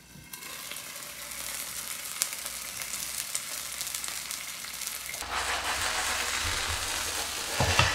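Rice-cake-crust pizza sizzling in a little oil in an uncovered frying pan, a steady hiss with fine crackles that grows louder and fuller about five seconds in.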